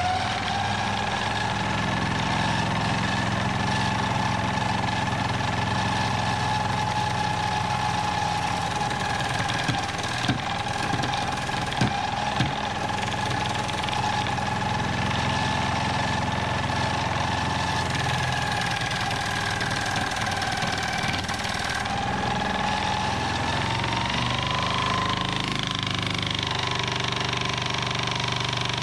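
Budget wood-turning lathe's motor running with a steady whine as a wet log spins on it, while a hand chisel cuts into the turning wood. A few sharp knocks come near the middle, and the whine rises a little in pitch near the end.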